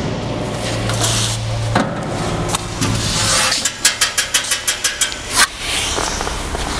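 Stainless steel olive paste machine handled with its lid open: a steady low hum and a knock over the first few seconds, then a quick run of about a dozen metallic clicks ending in a louder knock.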